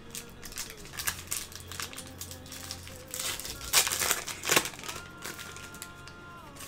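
A trading card pack's foil wrapper crinkling as it is handled, loudest in a burst of rustling midway through, over quiet background music.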